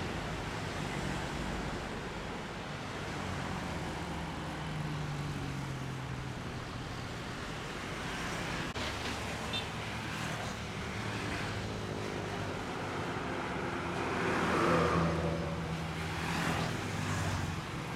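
Heavy road traffic: diesel engines of buses and trucks, with motorcycles, running past in a steady mix. A large diesel engine swells to the loudest point about three-quarters of the way through, with a smaller rise shortly after.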